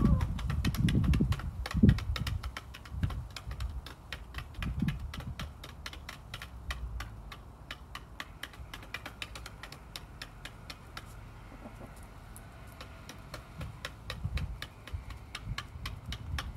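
Hens pecking quinoa from shallow dishes on concrete: rapid, irregular clicking of beaks on the dishes, several pecks a second, thinning out after about ten seconds. A few low thumps near the start.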